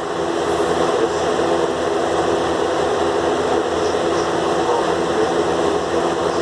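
Steady mechanical drone, an even noise with a constant low hum under it.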